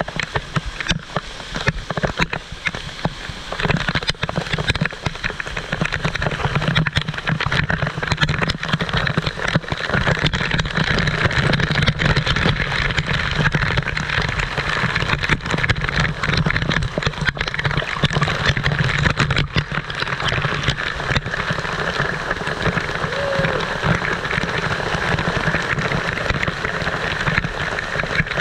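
Waterfall: a steady rush of falling water splashing and spattering.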